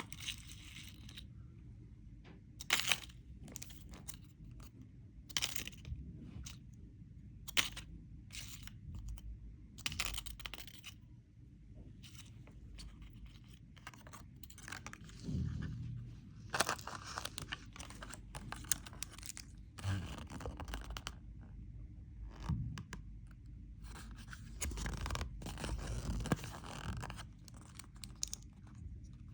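Candy wrapper being crinkled and torn open: irregular sharp crackles and rustles, busiest about halfway through and again near the end.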